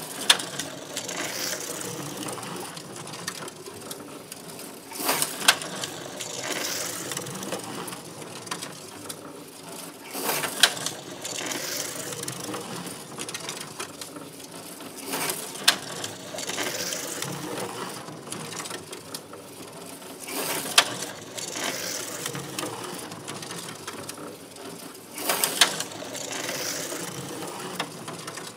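HO-scale slot car running laps: its small electric motor whirs steadily, with a louder swell and a sharp clack about every five seconds as the car comes round past the near end of the track, six times.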